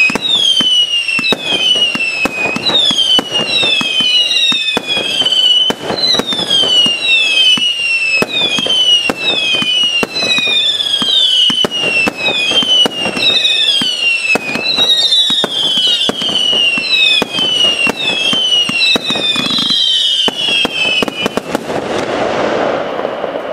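Fireworks firing shot after shot, each shot carrying a falling whistle, about one and a half a second, over dense crackling and popping of bursting stars. Near the end the whistles stop and a last stretch of crackling cuts off suddenly.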